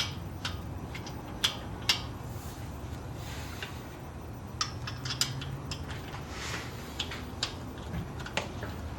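Scattered light clicks and knocks, a dozen or so at irregular intervals, over a steady low hum.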